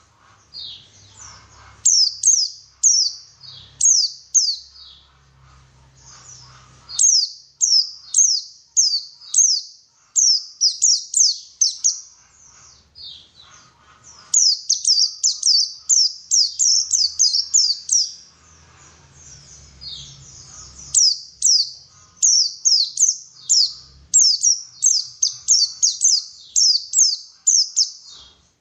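White-eye (pleci) song: rapid runs of short, high, downslurred notes, delivered in bursts of a few seconds with brief pauses between them.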